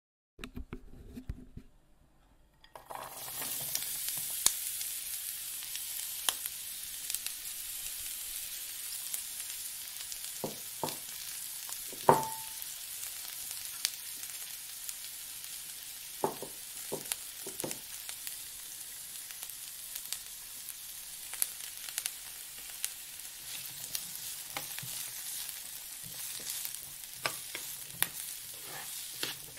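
Food frying in oil in a metal pan, a steady sizzling hiss that starts about three seconds in, while a metal spoon stirs and knocks against the pan. The loudest knock comes about twelve seconds in and rings briefly.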